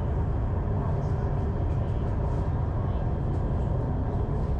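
Orange Line driverless metro train running, a steady low rumble heard from inside the carriage.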